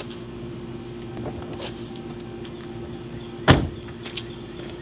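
One sharp knock about three and a half seconds in, over a steady low hum and a high, even insect drone like crickets, with a few faint clicks.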